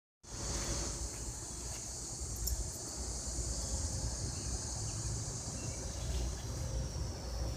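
Insects chirring steadily in a high-pitched, unbroken drone, over a low outdoor rumble.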